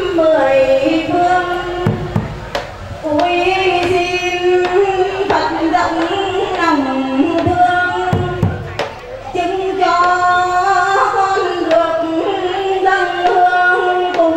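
Female voices singing a slow ceremonial chant over a microphone and loudspeaker, with long held notes and slow slides in pitch.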